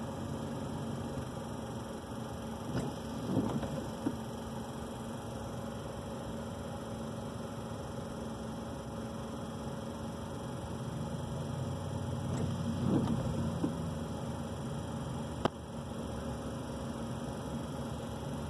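Steady low hum inside a car cabin while it sits idling in traffic. Two brief faint sounds come about three and thirteen seconds in, and a sharp click about fifteen seconds in.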